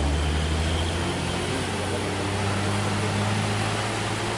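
Diesel truck engines labouring in low gear as the trucks climb a steep, wet hairpin: a low, steady drone over a constant hiss.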